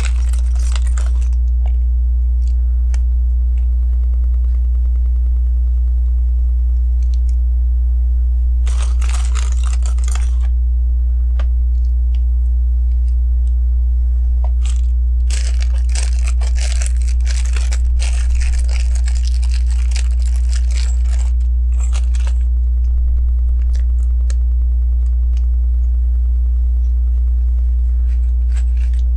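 Plastic LEGO pieces being sifted and handled: bursts of rustling and rattling, with small scattered clicks of pieces, the longest stretch lasting several seconds in the middle. A steady low electrical hum runs underneath throughout and is the loudest sound.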